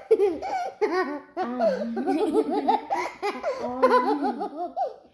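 High-pitched laughter: a long run of short giggling laughs, breaking off near the end.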